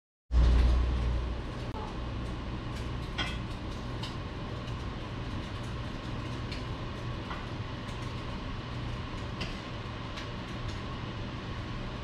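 Steady low rumble of city background noise, loudest just as it starts and settling within the first second or so, with a few faint scattered clicks over it.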